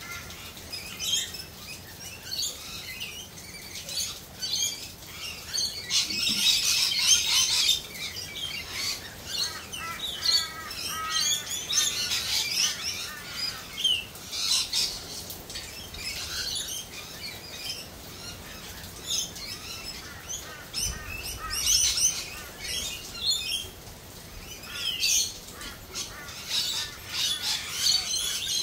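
Several birds chirping and squawking, with many short overlapping calls that are busiest about six to eight seconds in and again near the end, over a steady background hiss.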